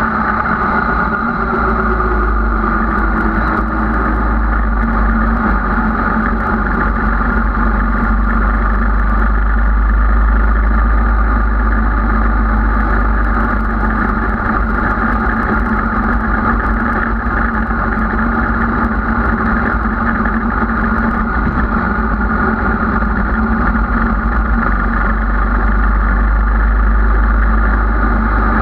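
Sport motorcycle engine running steadily at cruising speed, with a strong low rumble of wind over the windscreen. The loudness swells slightly twice.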